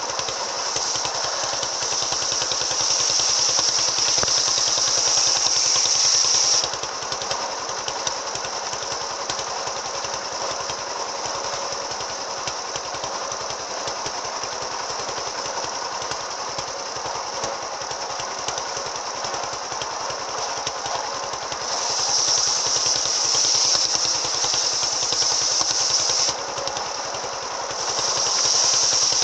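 Small-engine-driven circular saw with an AKM saw blade running continuously, its engine pulsing fast. It rises to louder, shriller stretches in the first six seconds and again from about 22 seconds in, with a brief drop near 26 seconds.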